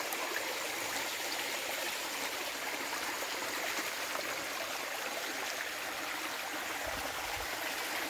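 Stream running nearby: a steady rush of flowing water.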